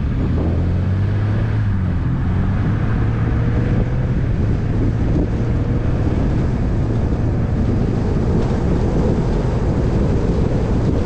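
Rally car engine pulling steadily along a gravel road, its tone rising a little in the first couple of seconds, over a constant rush of tyre and road noise.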